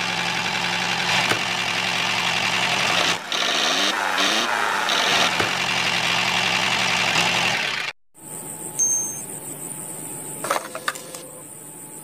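Engine running steadily. It breaks off abruptly about three seconds in and picks up again at once, then stops dead about eight seconds in. A quieter stretch follows, with a few clicks near the end.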